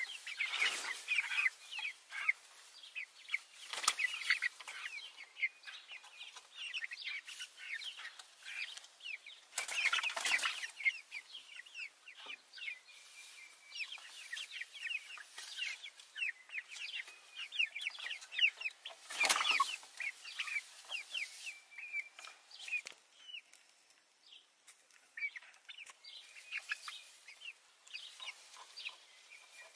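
A flock of brown leghorn hens calls and clucks continuously in short, high notes. About four brief, louder bursts of rustling stand out, the loudest about two-thirds of the way through.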